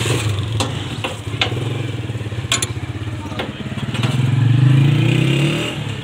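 A steady engine hum, like a passing motor vehicle, that swells to its loudest in the second half and then fades. Several sharp metallic clicks in the first half come as the washing-machine motor's small pulley is worked loose with a key.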